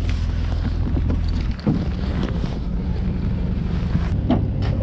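Steady low drone of a boat engine running, with wind buffeting the microphone and a few light knocks.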